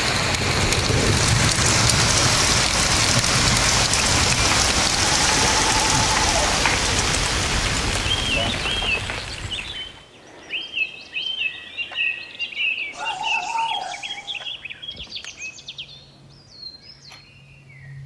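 Heavy rain bouncing off a workshop roof in a thunderstorm, a dense steady hiss that fades out about ten seconds in. Birds singing take over from there, with quick chirps and trills through the rest.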